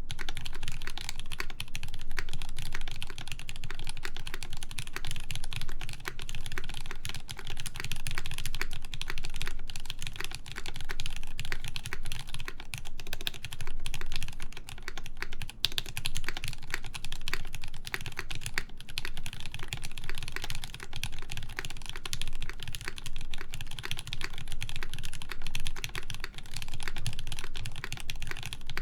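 Continuous fast typing on a CannonKeys Brutal v2 1800 mechanical keyboard with lubed JWK Lavender switches, an aluminum full plate and GMK keycaps: a dense, unbroken stream of key clacks.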